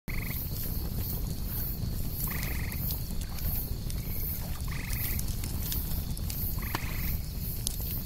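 Campfire crackling and popping over a low rumble, with an insect chorus: a steady high whine and fast high chirps pulsing a few times a second. A buzzy call, about half a second long, repeats four times, roughly every two and a half seconds.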